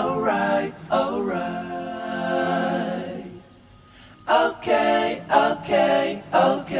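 Background music: unaccompanied vocal singing, breaking off briefly about three and a half seconds in before the voices come back.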